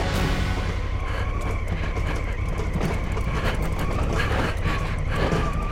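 Honda Africa Twin's parallel-twin engine running at low speed as a steady low rumble. Irregular knocks and rattles come from the bike's suspension and frame as it rolls over loose rocks.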